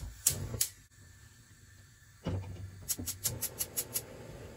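Saucepans knocking on the gas hob's metal grate, then the stove's spark igniter clicking rapidly, about six times a second for a second, and the gas burner catching with a steady low rush of flame.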